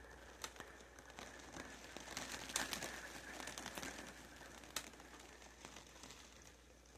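Light rain: a faint crackle of drops with scattered sharp clicks, a little louder about two to four seconds in.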